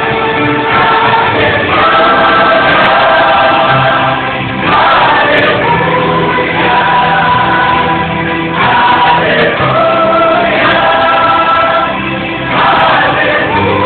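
Choir singing a Portuguese Christian gospel song with musical accompaniment, in long held chords that change about every four seconds.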